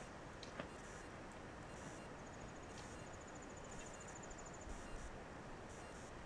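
Faint woodland ambience: a steady hiss with a few light clicks, and a high-pitched insect trill, a rapid even pulsing that starts about two seconds in and lasts about two and a half seconds.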